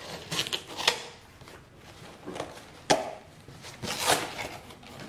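A shipping package being opened by hand: rustling and scraping of the packaging, a sharp click about a second in and another near three seconds, and a longer rasping rustle around four seconds in.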